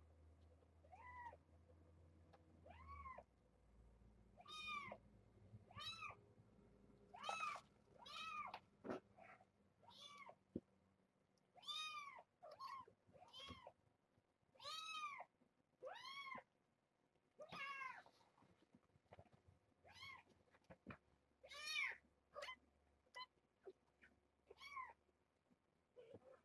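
Young kittens, about three and a half weeks old, mewing over and over: about twenty short, high calls, each rising and then falling in pitch, one to two seconds apart.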